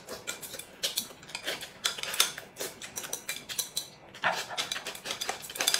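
Chopsticks clicking quickly and irregularly against a ceramic rice bowl, with eating noises, as a man shovels food from the bowl held to his mouth.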